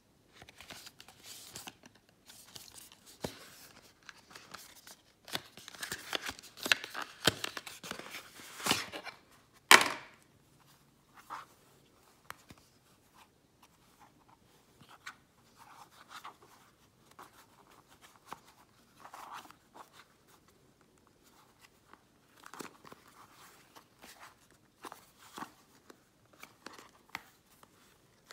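Filter-kit packaging being opened by hand: dense rustling and tearing of the box and its wrapping for several seconds, ending in a loud sharp crack just before ten seconds in. Then scattered light clicks and rustles as the grey filter case is handled.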